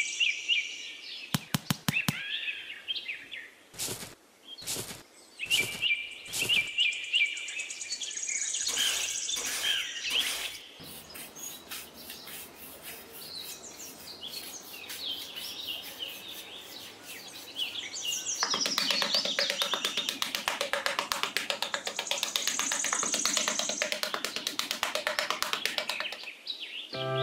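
Small metal trowel scraping and tapping in sand, with scattered strokes at first and a long run of quick scraping strokes near the end, over birds chirping.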